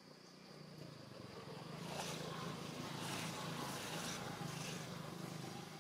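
A motor running, swelling over a couple of seconds and then fading, under a thin steady high insect buzz.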